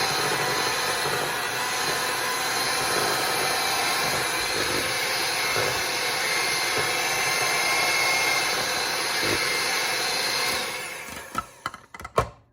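Electric hand mixer running steadily, its beaters whipping coconut cream in a bowl. It switches off about ten and a half seconds in, followed by a few sharp knocks.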